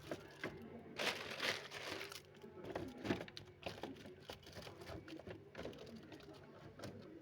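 Plastic snack packaging crinkling as it is handled, in irregular rustles with small clicks, loudest about a second in.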